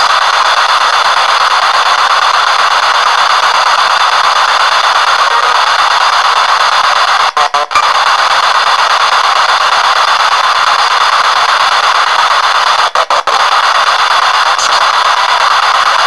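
P-SB7 spirit box sweeping through radio stations, heard through an external speaker: a steady, loud hiss of radio static. It cuts out in quick flickers twice, about seven and a half seconds in and again about thirteen seconds in.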